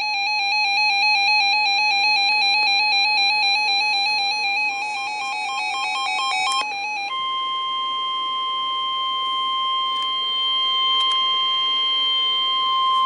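A warbling electronic tone pattern that flips rapidly between pitches for about seven seconds, then switches to one steady, unwavering alert tone held for about six seconds before cutting off: the NOAA Weather Radio warning alarm tone that signals a warning broadcast is about to be read.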